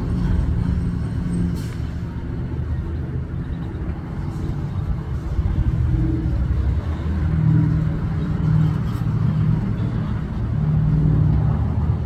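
A steady low engine rumble with a pitched hum, swelling slightly about halfway through and again near the end.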